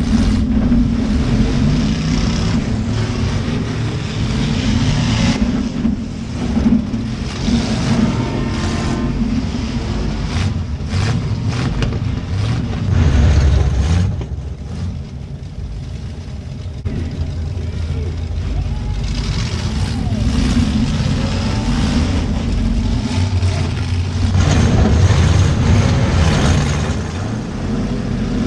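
Demolition derby cars' V8 engines running and revving hard, rising and falling, with a cluster of sharp knocks between about six and eleven seconds in as the cars crash into each other.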